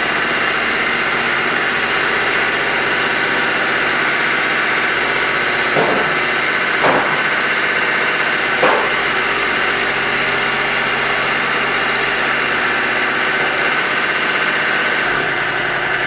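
Toro Dingo TX1000 mini track loader's 25-horsepower Kubota diesel engine running steadily, with three short knocks about six, seven and nine seconds in.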